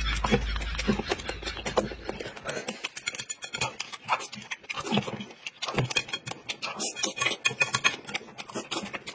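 Close-up eating noises: a man chewing and smacking on mouthfuls of food picked with chopsticks from a plate, a run of short irregular clicks and smacks.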